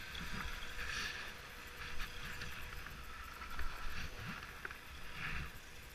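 Skis sliding and carving on groomed snow, a hiss that swells and fades with each turn, over the low rumble of wind on the microphone.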